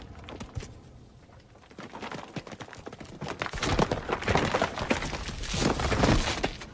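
Film sound effects from a dinosaur attack scene: a dense clatter of cracks and crashes that is fairly quiet at first, then grows loud about three and a half seconds in, swells again near the end, and drops away.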